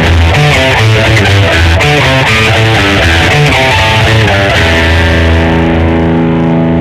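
Schecter Omen 6 electric guitar played through a distorted effects patch: a fast riff of short notes, then a chord struck and left ringing from about two-thirds in.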